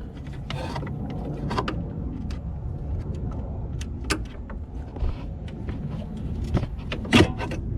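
Scattered small clicks and taps of a pry tool working plastic trim clips around a car's hood latch, with one sharper click near the end, over a steady low background rumble.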